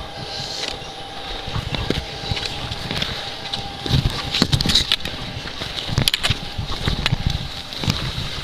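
Skis scraping and sliding over packed snow while being towed up a drag lift, with wind rumble and irregular handling knocks on the camera microphone.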